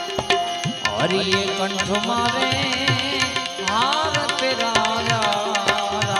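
Instrumental bhajan accompaniment: tabla strokes with the bass drum's pitch sliding up and down, over a harmonium's steady tones and the ringing strokes of small hand cymbals.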